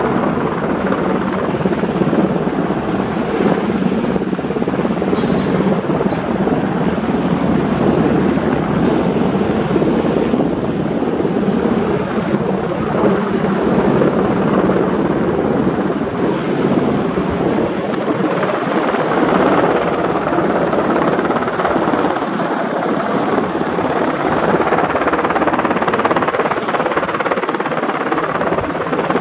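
Sikorsky UH-60 Black Hawk helicopter hovering overhead, its rotors and twin turbine engines running steadily while it holds a steel chairlift tower slung beneath it on a line.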